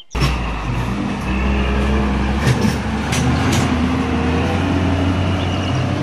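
A fuel tanker truck's engine running with a steady low rumble as the truck drives over a muddy dirt road. A few sharp knocks sound in the middle.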